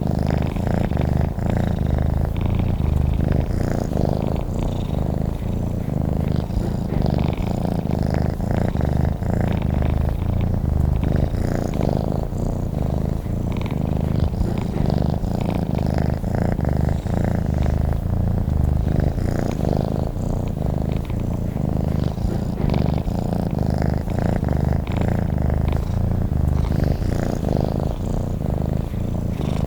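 A domestic cat purring steadily, a continuous low rumble of rapid pulses.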